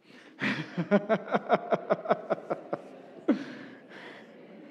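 Laughter: a run of about a dozen quick 'ha' pulses over the first three seconds, then a quieter murmur of a congregation talking to their neighbours.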